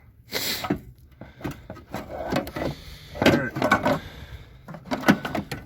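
Irregular metal clunks, knocks and scrapes as a heavy exhaust manifold is manoeuvred into position under a car, with a short rustle near the start.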